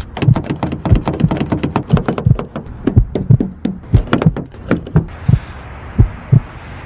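A rapid, irregular series of knocks and thumps, several a second, thinning out to a few isolated thumps over a steady faint hiss about five seconds in.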